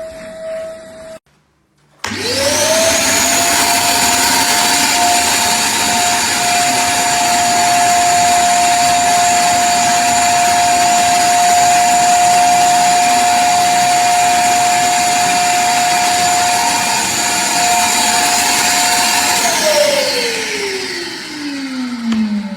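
Einhell TC-VC 1930 S 1500 W wet and dry vacuum cleaner switched on about two seconds in. Its motor spins up within a second to a loud, steady whine. Near the end it is switched off and winds down, its pitch falling.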